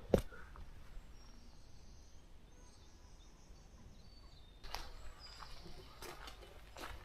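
Faint, high bird calls over quiet outdoor ambience. A single sharp click comes just after the start, and footsteps begin about two-thirds of the way in.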